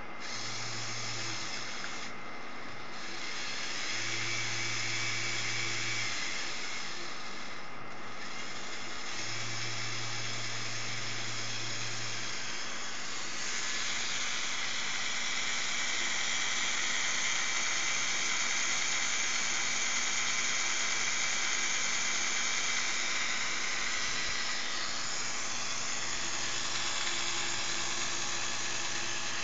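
Lego Power Functions XL motor whirring as it drives Technic gears, running continuously with its tone shifting several times, and a low hum that comes and goes three times in the first half.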